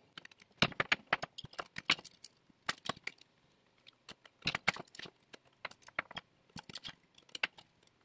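Irregular small clicks, taps and rattles of wire leads, a screwdriver and a plastic switch housing being handled while lamp-holder wires are fitted into the switch's screw terminals.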